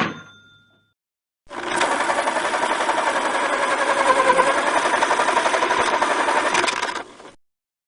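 Banknote counting machine riffling through a stack of bills: a rapid, steady mechanical flutter of fast ticks lasting about six seconds, then stopping abruptly. A ringing tone fades out at the very start.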